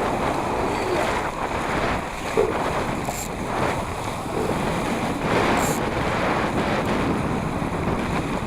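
Wind buffeting the microphone over water rushing and splashing against a Laser sailing dinghy's hull, with two brief sharper splashes.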